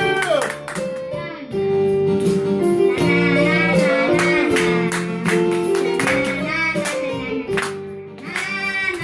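A boy singing into a microphone over electronic keyboard accompaniment with a steady beat.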